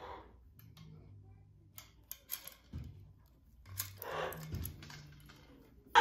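A few light metallic clicks and clinks from a parrot swing's metal chains and hooks being handled, with a short soft rustle about four seconds in.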